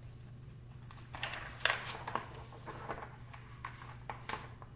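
Paper pages of a thin paperback picture book rustling and flipping as it is opened, starting about a second in, followed by a few soft clicks and crinkles of handling, over a low steady hum.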